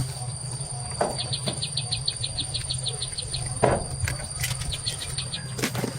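An insect chirping in a fast, even train of short high pulses, about eight a second, in two runs. Two knocks sound under it, the louder one at about the middle.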